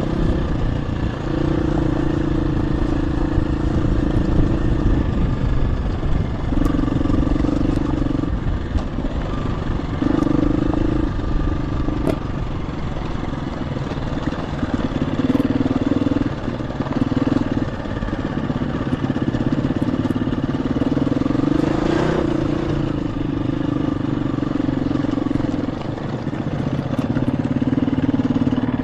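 KTM 350 EXC-F dirt bike's single-cylinder four-stroke engine running under way. The engine note swells and drops every few seconds as the throttle is opened and closed, with scattered sharp ticks.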